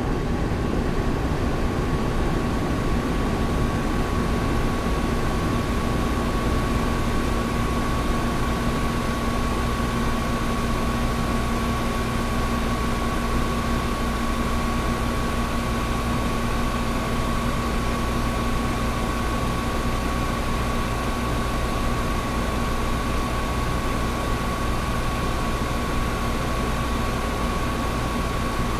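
An old window air conditioner running steadily: an even rush of air from its fan over a low hum, with a constant high whine and a lower drone.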